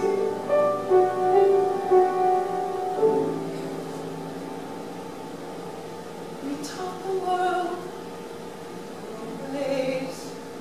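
A woman singing a show tune with sustained notes over piano accompaniment; her held notes end about three seconds in and the accompaniment carries on more quietly.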